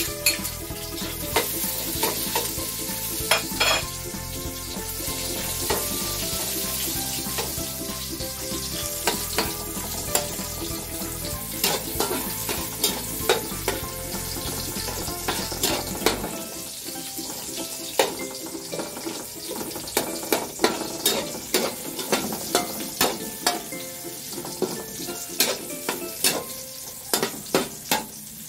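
Food sizzling in hot oil in a steel wok while a metal spatula stirs it, scraping and clinking against the wok over and over, more often in the second half.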